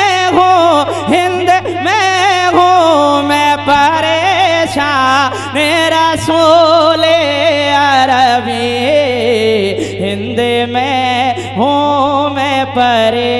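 A man singing a naat, an Urdu devotional poem in praise of the Prophet, solo into a microphone, drawing the line out in long, ornamented notes that waver and glide in pitch. A steady low hum runs underneath.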